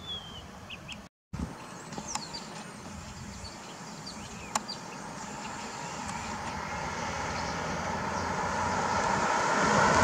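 Ford Police Interceptor Utility SUV approaching on a paved road, its tyre and engine noise growing steadily louder through the second half.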